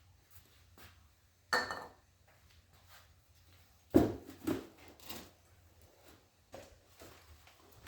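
Metal parts being handled and set down: a few separate knocks and clinks, the first about a second and a half in with a short metallic ring, then a louder group of knocks around four to five seconds in.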